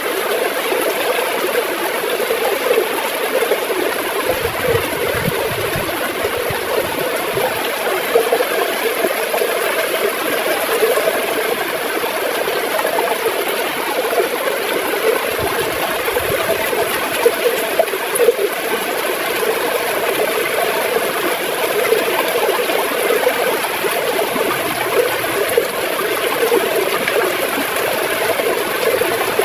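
River water flowing and gurgling steadily, a continuous rushing with a dense bubbling flicker throughout.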